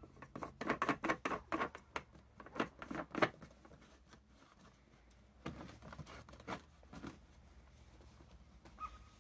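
Hands fitting the plastic tank nut at a snowmobile's fuel-tank opening, over the gas gauge: a run of irregular plastic clicks and rustles for the first three seconds, and a few more clicks about five and a half to seven seconds in.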